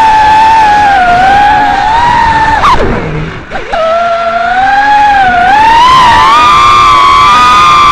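FPV quadcopter's brushless motors whining, the pitch rising and falling with the throttle. About three seconds in the throttle is chopped: the whine drops away for half a second, then climbs back.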